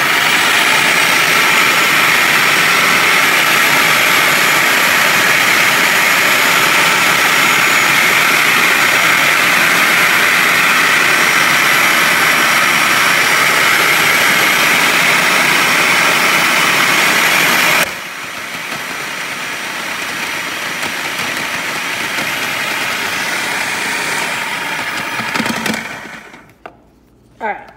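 Electric food processor running at speed as halved oranges are pushed through its feed tube onto the slicing disc, a loud steady motor noise. About 18 seconds in it drops to a quieter run, and it stops a couple of seconds before the end.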